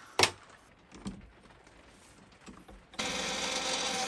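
A sharp click and a few faint knocks, then about three seconds in a metal lathe suddenly starts running with a steady, noisy whir and several steady tones, set to cut an undercut and part the piece off.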